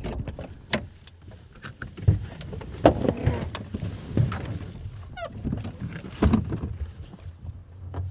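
Irregular knocks and clicks from a parked car as its driver moves about and gets out, with a short squeak about five seconds in.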